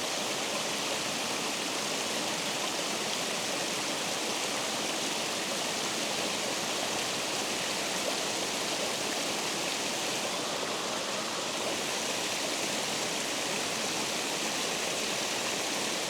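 Water rushing steadily over a spillway, an even, unbroken roar of falling water.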